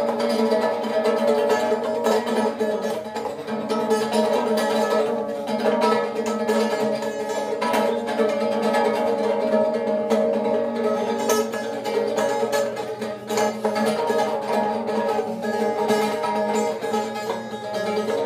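Acoustic guitar played solo, a steady stream of quickly picked notes over held chords.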